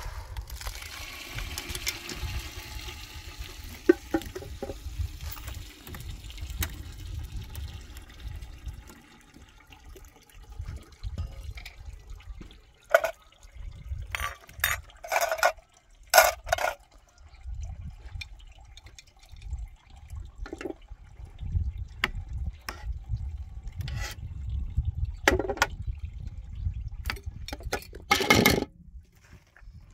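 Starchy water from a pot of parboiled rice poured into a plastic colander, splashing and draining for the first several seconds as the rice is strained. After that come scattered knocks and clatters of the pot and utensils, over a low rumble.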